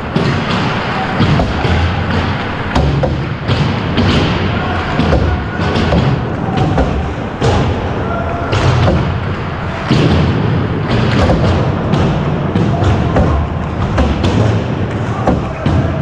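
Ice hockey sticks and pucks knocking on the ice, with skate blades scraping, many players at once in a large echoing rink, and frequent thumps close to the microphone.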